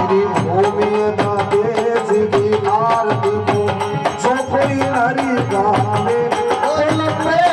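A man singing a devotional folk bhajan into a microphone, with a steady hand-drum beat and melodic accompaniment.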